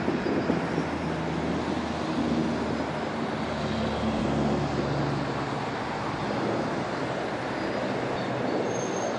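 Steady road traffic noise: the engines of a line of cars running, with some wind on the microphone.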